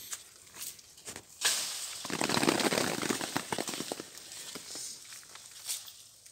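Woven plastic sheet rustling and crackling as it is handled and shaken. It starts sharply about a second and a half in, is loudest for the next couple of seconds, then goes on more softly.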